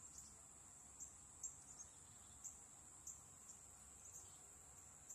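Faint outdoor insect chorus: a steady high-pitched trill, with short high chirps breaking in irregularly about once a second.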